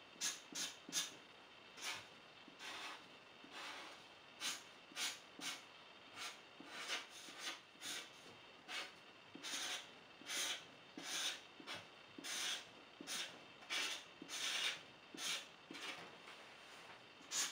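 A black marker being drawn across paper in short, irregular strokes, about one or two a second.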